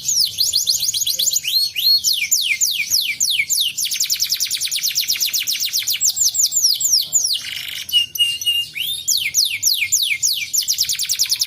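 Domestic canary singing: long fast trills of quickly repeated high notes that each slide downward, broken about eight seconds in by three short steady whistled notes before the trills resume.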